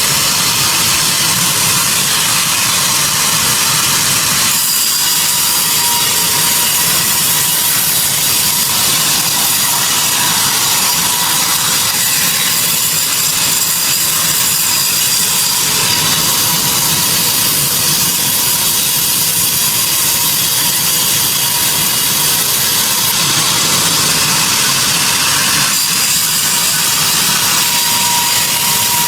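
Sawmill saw cutting through a mahogany log, a steady, loud machine noise with the mill's motor running under it.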